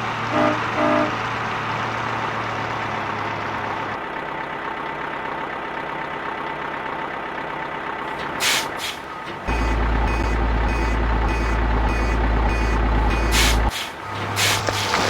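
Truck sound effects. A truck engine runs with two short beeps near the start. Later come hisses like air brakes and a loud rumble under a repeating reversing beeper.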